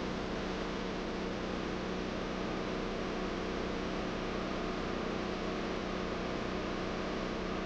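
Flux-core wire welder arc sizzling in a steady hiss, with the generator powering it running underneath as a steady hum.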